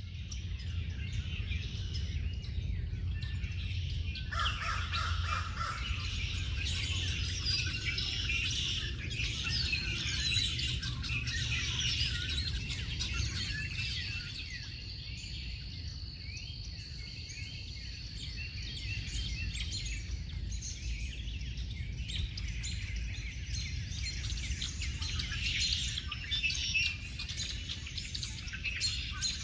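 Many wild birds chirping and calling over one another, with a low steady rumble underneath. A thin, steady high tone is held for several seconds in the middle.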